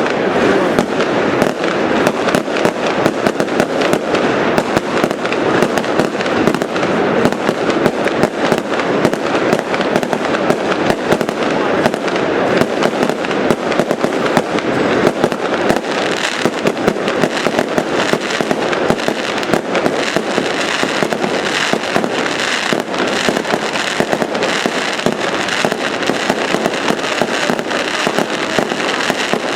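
Fireworks going off in a dense, continuous barrage of rapid bangs and crackling, with no let-up.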